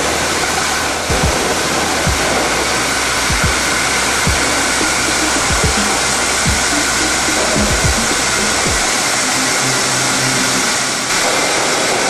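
Leadwell LTC-35CLV CNC turning centre machining, a steady loud rush of noise like spraying coolant, with irregular low thumps through it.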